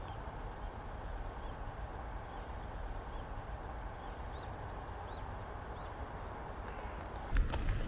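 Faint, short high calls of a zitting cisticola, spaced irregularly, over a steady background hiss. A few sharp knocks come near the end.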